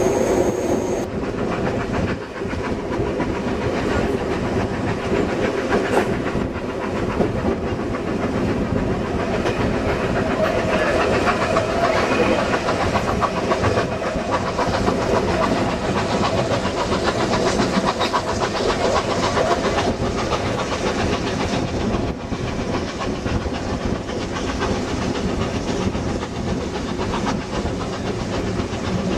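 Passenger train hauled by steam locomotive 3642, a C36-class 4-6-0, heard from inside a carriage: a loud, steady running noise of wheels on the rails. A thin high whine fades out about a second in.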